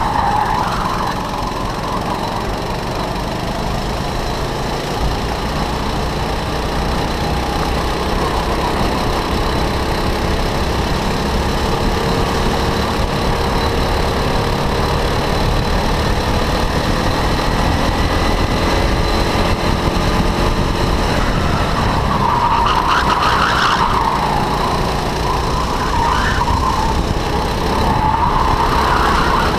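Go-kart engine running at speed with its pitch rising and falling as the kart laps, and the tyres squealing through the corners in several wavering bursts, about two-thirds of the way in and again near the end.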